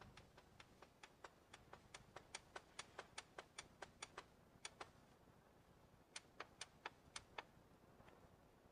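Faint, quick ticking clicks, about five a second, that pause for over a second about halfway through and then resume briefly.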